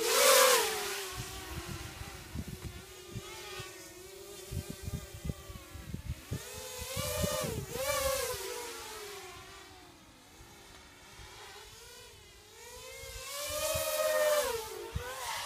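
250-size FPV racing quadcopter's motors and propellers whining as it flies past, the pitch rising and falling with the throttle. It is loudest as it passes close right at the start, again about seven to eight seconds in, and again near the end.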